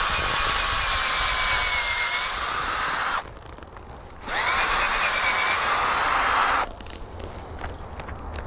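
Cordless drill boring a hole into a fruit tree's trunk, the socket for a drill graft. The motor whines in two runs, each starting with a quick rise in pitch: the first about three seconds long, then after a pause of about a second a second run of about two seconds.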